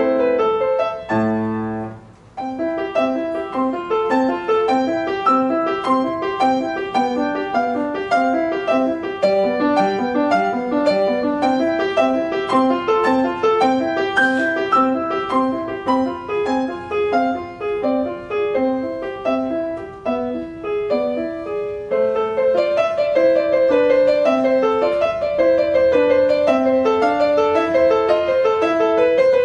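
Solo grand piano playing a classical piece: a short break about two seconds in, then a long run of fast, even notes, and about twenty-two seconds in the music changes to a singing upper line over moving lower notes.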